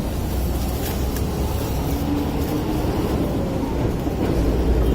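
Steady low rumble of vehicle traffic, swelling slightly near the end.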